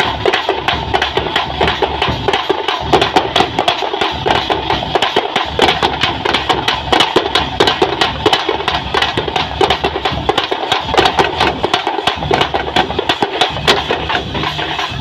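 A troupe of handheld frame drums beaten with sticks in a fast, dense rhythm, with deeper drum strokes underneath.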